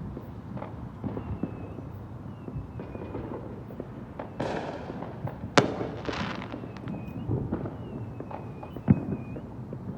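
Fireworks going off without pause: scattered pops and crackles, a hissing burst about four and a half seconds in, a sharp bang just after it, and a heavy low boom near the end.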